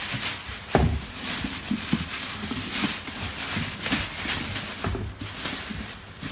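Rustling and crinkling of plastic packaging as pressure-washer parts are unpacked, with several light knocks of hard plastic parts being handled.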